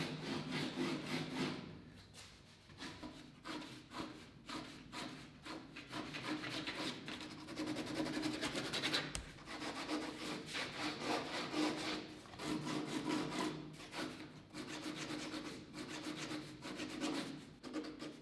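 Pen nib scratching across heavy paper in runs of quick, short strokes with brief pauses, as a drawing is sketched.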